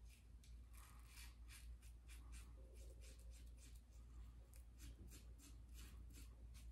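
Faint scraping of a Supply single-edge safety razor cutting stubble through shaving-soap lather on the upper lip, in a quick run of short strokes, about three or four a second, over a low steady hum.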